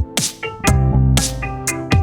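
Background music with a steady electronic beat: sharp drum hits about every half second over pitched synth notes and a deep bass.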